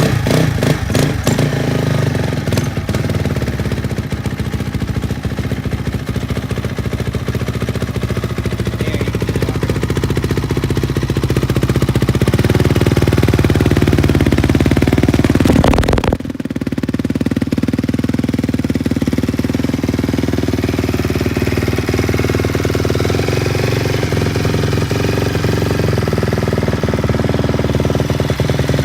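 Dirt bike engine running, its revs rising slowly and then dropping suddenly about sixteen seconds in before it settles back to a steady run.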